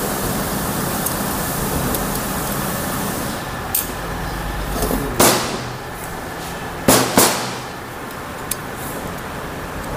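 A few sharp metallic knocks and clinks from hand work on a motorcycle cylinder head: one about five seconds in with a brief ring, then two close together about seven seconds in, with fainter taps around them. Under them runs a steady background hum.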